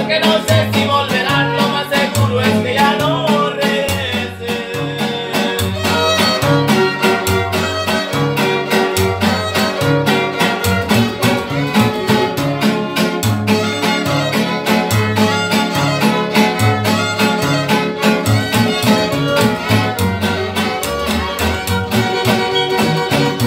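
Instrumental passage by a Mexican string band: two violins play the melody over strummed guitars and a plucked upright bass walking between low notes in a steady rhythm.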